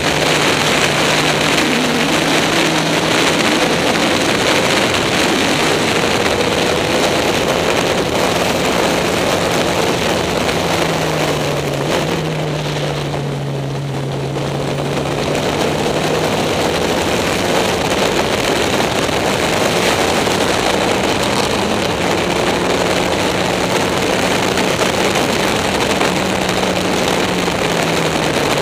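Caterham SP/300.R race car at speed on track from its open cockpit: the engine drones steadily, easing off about twelve seconds in and then pulling again, under heavy wind and road noise.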